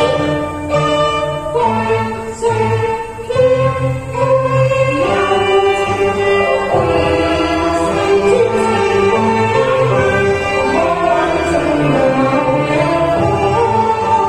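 Cantonese opera song (yuequ) sung with instrumental accompaniment, long held and sliding vocal notes over a steady backing.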